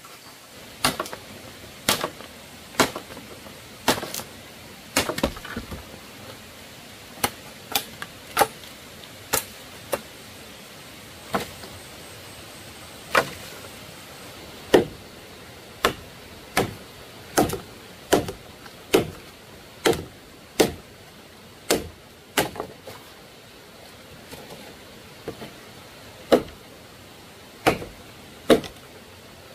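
A blade chopping in hard single strikes, about one a second, with a couple of short pauses.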